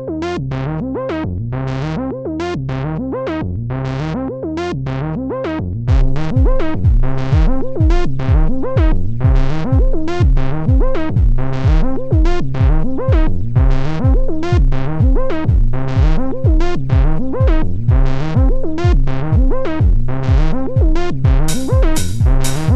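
Electronic rave music on synthesizer and drum machine: a fast repeating synth pattern, joined about six seconds in by a steady kick drum. Crisp hi-hat-like ticks come in near the end.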